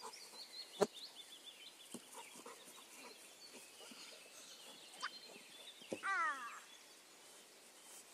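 A child's short, high-pitched shout falling in pitch about six seconds in, with a single sharp knock a little under a second in. Birds chirp faintly in the background.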